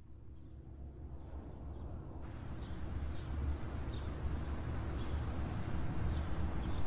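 City ambience fading in and slowly growing louder: a steady low rumble of distant traffic with short, high bird chirps about once a second.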